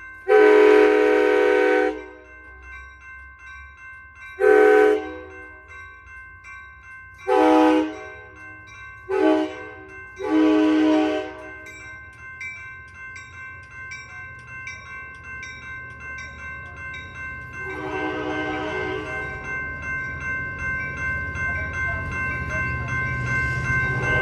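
A locomotive's Nathan K5-series five-chime air horn sounding for a grade crossing: a long blast, then several shorter ones, and a fainter blast near the end. Grade-crossing bells ring steadily underneath, and the train's rumble grows louder over the last several seconds as it approaches.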